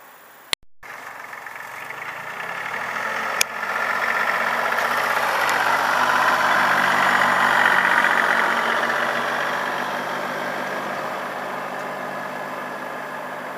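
Compact tractor's engine running as it drives past close by with a roller spiker aerator on the back, growing louder to a peak about halfway and then slowly fading. A sharp click with a brief dropout just after the start, and another click about three seconds in.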